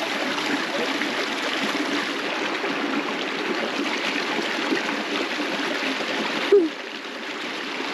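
Small creek's water running steadily over rocks, a constant rushing trickle that becomes a little quieter near the end.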